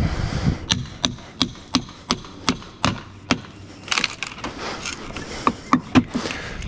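Steel pry bar jabbed again and again into a rotted cedar fascia board: sharp wooden knocks about three a second, a short rougher splintering patch about four seconds in, then a few more knocks.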